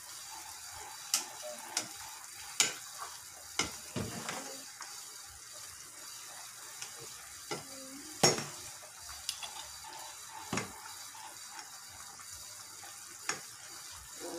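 Metal ladle stirring chicken soup in an aluminium pot, knocking sharply against the pot several times, loudest about eight seconds in, over a steady hiss.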